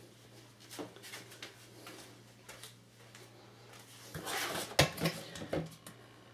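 A plastic creamer bottle is picked up off the counter and handled, with a sharp click of its snap cap being flipped open about five seconds in. Before that there are only a few small clicks over a faint steady hum.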